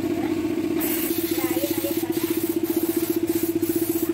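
A motor running steadily: a low hum with a fast, even pulse that becomes more pronounced about a second in.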